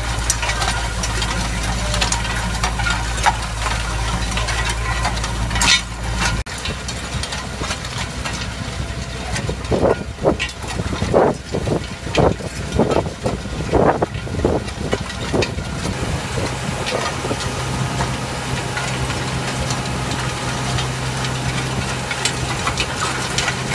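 Tractor engine running steadily while pulling a row-crop cultivator, with clicking and rattling from the implement. For several seconds in the middle the engine drone drops out and a run of about a dozen loud, irregular thumps, roughly two a second, takes over.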